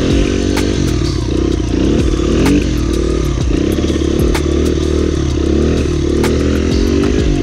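Single-cylinder dirt bike engine being ridden, its revs rising and falling over and over as the throttle is worked, with scattered clicks and clatter mixed in.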